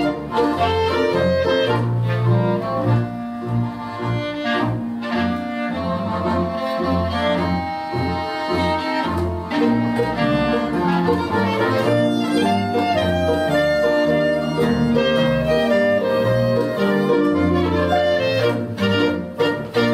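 Small folk ensemble of clarinet, violin, concert harp and double bass playing an instrumental passage of a march, with the clarinet and violin carrying the tune over a steady, pulsing bass line.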